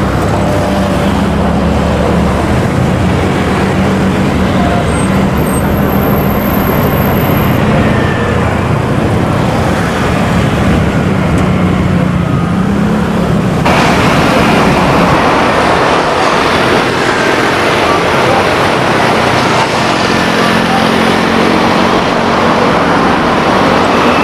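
Steady engine noise: a low drone over a dense rumble. About halfway through, the sound changes abruptly to a brighter, hissier noise with the drone fainter.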